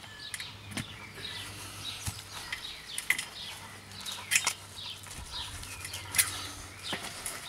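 About six sharp knocks as a hatchet and a narrow spade strike the soil at the base of a steel fence post, against a background of birds chirping.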